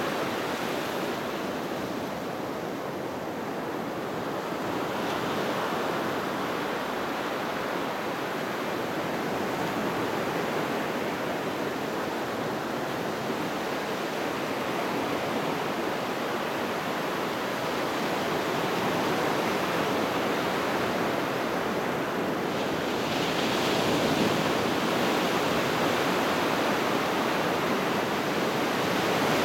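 Ocean surf breaking and washing up a sandy beach: a steady rushing hiss that swells and eases. It grows louder and brighter about three-quarters of the way through.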